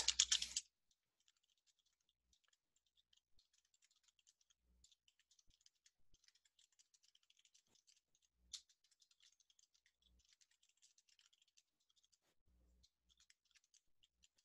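Faint computer keyboard typing, scattered key clicks with one sharper click about eight and a half seconds in.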